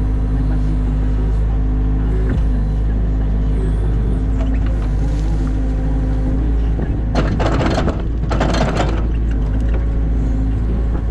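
New Holland Kobelco E50.2 mini excavator's diesel engine running steadily under hydraulic load as the arm digs and swings. Two short bursts of rushing noise come about seven and eight and a half seconds in.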